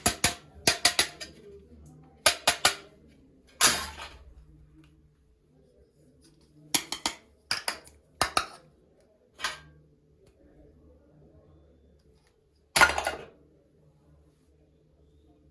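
Small toy kitchen-set pieces clicking and clinking as they are handled and set down, in short clusters of sharp taps separated by pauses, the longest and loudest clatter near the end.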